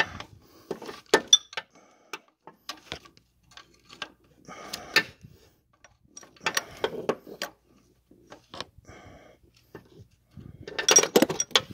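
Socket wrench working on a bolt: scattered sharp metallic clicks and clinks with a few short bursts of rattling, the loudest about a second before the end.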